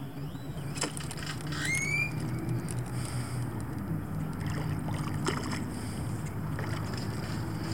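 Low steady hum of a boat motor, with a short rising bird chirp about two seconds in and a few light clicks.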